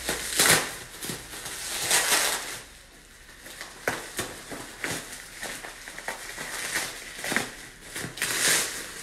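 Scissors snipping through plastic bubble wrap, the wrap crinkling and rustling in irregular bursts as it is cut and pulled apart, with a few sharp clicks between.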